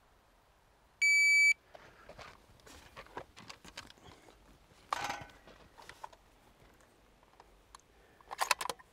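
Shot timer's start beep, one steady electronic tone about half a second long. It is followed by clattering and rustling of gear being handled, and a quick cluster of sharp clicks near the end.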